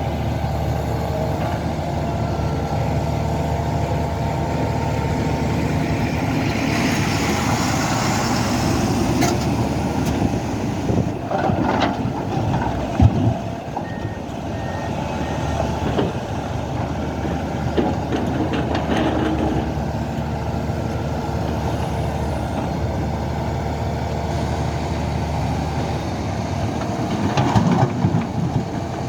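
Diesel engine of a SANY hydraulic excavator running steadily under load, with a hiss part-way in, metallic clanks and one sharp knock about halfway through, and three short high beeps just after.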